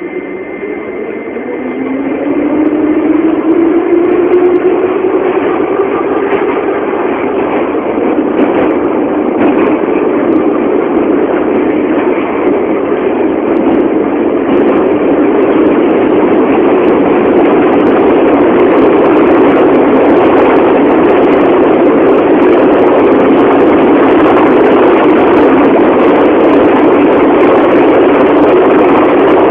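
Subway train running: a motor whine rises in pitch over the first few seconds as the train picks up speed, then settles into loud, steady running noise.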